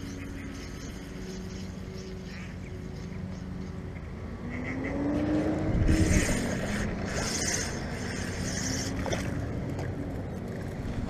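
A motor engine running steadily, its pitch rising and then falling about five to six seconds in, where it is loudest.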